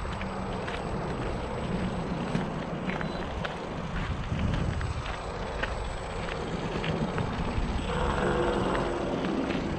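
A Traxxas Maxx RC monster truck's electric motor and drivetrain running as it drives over the trail. It makes a steady low hum with scattered sharp clicks of tyres and stones. A higher-pitched motor whine comes in about eight seconds in.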